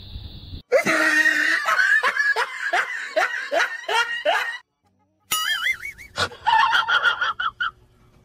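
A person laughing hard in a run of short rhythmic bursts, about three a second, followed after a short pause by a wavering, warbling sound.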